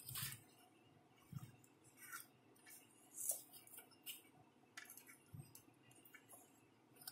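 Plastic toy excavator bucket scraping and scooping dry sand, faint and irregular: a string of short scrapes and rustles with small plastic clicks.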